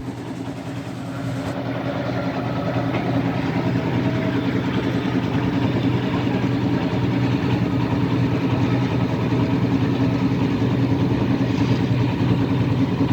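An engine running steadily with a low, even hum, growing louder over the first three seconds and then holding level.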